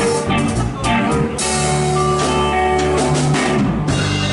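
Live band playing: electric guitar over bass guitar and drum kit.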